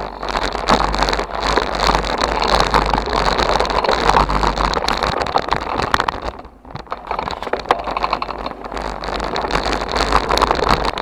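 Bicycle being ridden with the camera on board: steady tyre and frame noise full of small knocks and rattles, with wind rumbling on the microphone. It eases briefly about six and a half seconds in.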